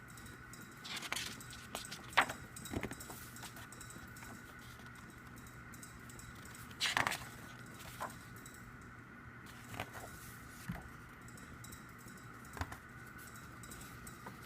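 Scattered light clicks and jingly rattles, about a dozen spread irregularly, the strongest a couple of seconds in and about seven seconds in, over a faint steady hum.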